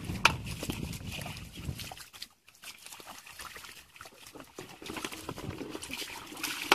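Wet squelching and sloshing of hands digging through soft mud and shallow muddy water, with scattered sharp clicks and knocks, the first just after the start.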